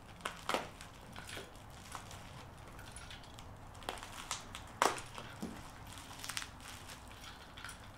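Plastic packaging bags crinkling as small parts are unwrapped by hand, with scattered sharp clicks and taps of the parts being handled and set down on a bench; the loudest click comes a little before five seconds in.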